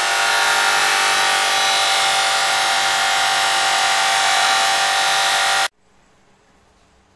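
A long steel blade ground against a spinning abrasive wheel driven by an electric motor: a loud, steady hissing grind with a motor whine. It cuts off suddenly near the end, leaving quiet room tone.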